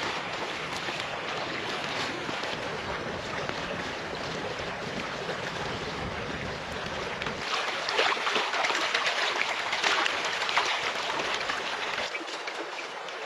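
Steady rush of a fast-flowing river over stones. Sharp crackling is mixed in between about eight and eleven seconds.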